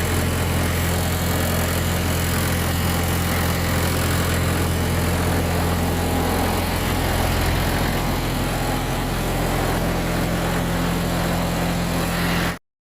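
Mitsubishi 6D16 inline six-cylinder diesel engine running steadily, driving a 6-inch sand pump; the sound cuts off suddenly near the end.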